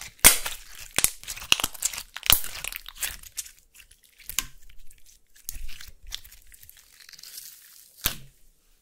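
Clear slime, tinted gold, being stretched, folded and squeezed by hand, giving irregular sharp pops and clicks with a crackly stretching hiss between them.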